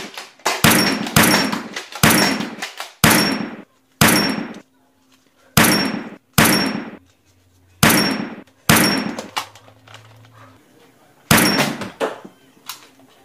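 Toy blaster shots: a string of about ten sharp bangs, roughly one a second, each fading within about half a second, with a pause of about two seconds before the last two.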